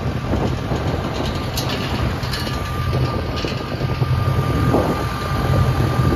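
Moving vehicle's engine and road noise: a steady low rumble that slowly grows louder, with a few short rattles.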